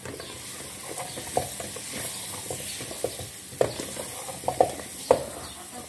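Whole pequi fruits frying in oil with onion and spices in a metal pot, a steady sizzle, while a wooden spoon stirs them and knocks against the pot several times at irregular moments, the loudest knock near the end.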